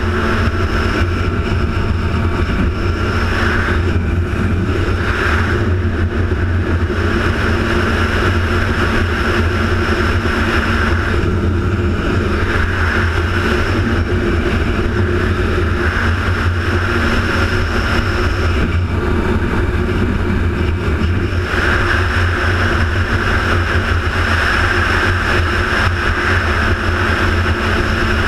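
Steady, loud drone of a vehicle under way: a low engine rumble with wind rushing past.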